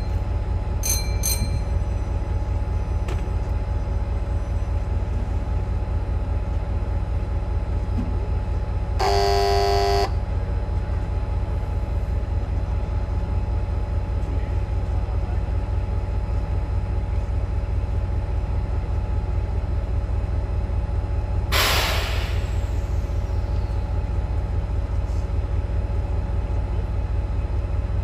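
Steady low rumble of a train, with a horn sounding once for about a second about a third of the way in and a short burst of hiss about three-quarters of the way through.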